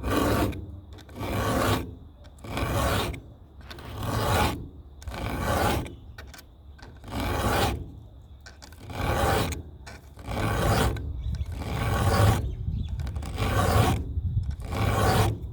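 Hand filing of a semi-chisel chainsaw chain's cutters with a round file at about 30 degrees: about eleven rasping strokes, one roughly every second and a half, sharpening cutters whose edges had been rolled over.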